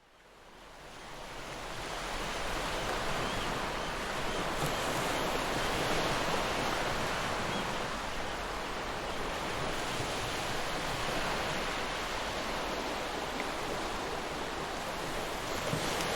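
Ocean waves washing in, a steady rush of surf that fades in over the first two seconds and swells gently now and then.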